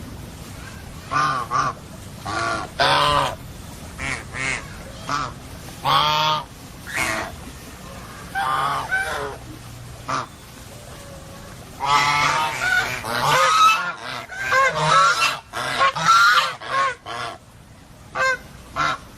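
Birds honking: many short, loud calls in irregular bunches, overlapping and most crowded about two thirds of the way through.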